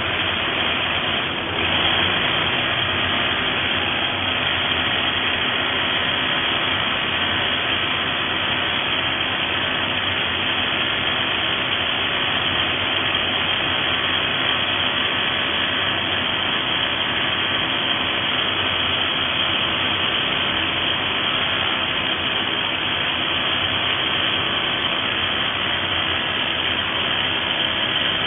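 Corded SDS-Plus rotary hammer (Xcort XZC06-26) running steadily under load, hammer-drilling a bit into concrete, with a brief dip about a second and a half in.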